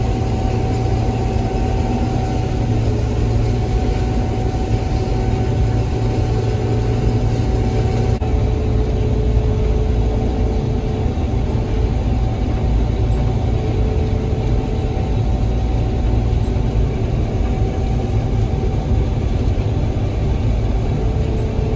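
Gleaner combine running steadily while harvesting soybeans: a constant engine and machinery drone with a thin steady whine above it, the higher sounds dropping slightly about eight seconds in.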